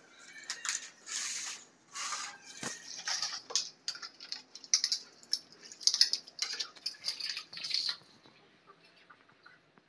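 Dishes being washed by hand on a wet floor: water splashing and scrubbing in irregular bursts, with small knocks of a plate and plastic mug, going quiet after about eight seconds.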